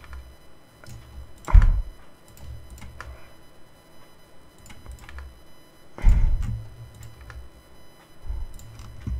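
Scattered clicks and taps of a computer keyboard and mouse, with two louder dull thumps, one about a second and a half in and one about six seconds in.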